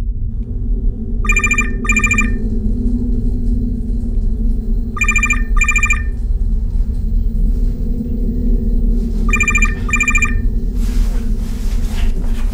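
Telephone ringing in pairs of short trilling rings, three pairs about four seconds apart, over a steady low rumble. Near the end comes a rustling scuffle.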